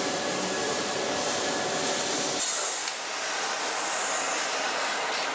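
Steady background noise of a metal fabrication workshop, a continuous machine-like rumble and hiss. About halfway through the low rumble drops away abruptly, leaving a higher, thinner hiss.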